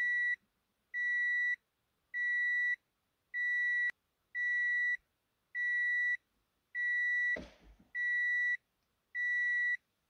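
Parked vehicle's warning chime beeping steadily, one high beep about every second, the reminder a vehicle gives when it is left with a door open or the key in while the driver is out. A brief rustling thump comes about seven seconds in.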